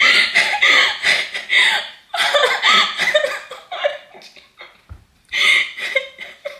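A woman laughing nervously in three high-pitched bursts while she tries to make herself rip off an armpit wax strip.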